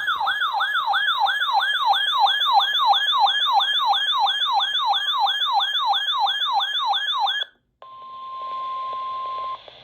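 Electronic siren-like alert tone sweeping down over and over, about three sweeps a second. It stops suddenly after about seven and a half seconds, and after a short break a steady single tone sounds over radio hiss for about two seconds: the weather radio's warning alarm tone that comes before a new warning.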